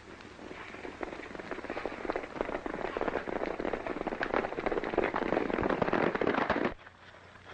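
Several horses galloping, a dense clatter of hoofbeats that grows louder and then cuts off abruptly near the end.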